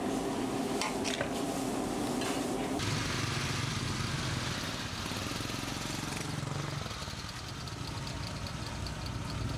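Metal spatula stirring and scraping vegetables in a large wok, with a few clinks, for about the first three seconds. Then a Suzuki Carry Futura pickup's engine running low and steady as the truck drives slowly past.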